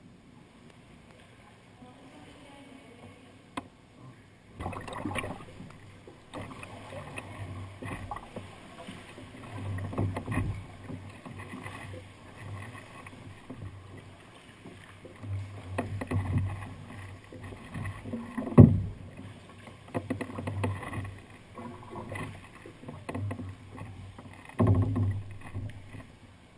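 Sea kayak paddling inside a sea cave: paddle strokes and water sloshing against the hull come in irregular swells every second or two. A single sharp knock about two-thirds of the way through is the loudest sound.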